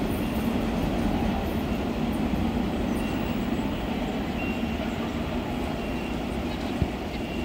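Train hauled by a Taiwan Railway R-class diesel-electric locomotive running along the track: a steady rumble of wheels on rails, with a single sharp knock near the end.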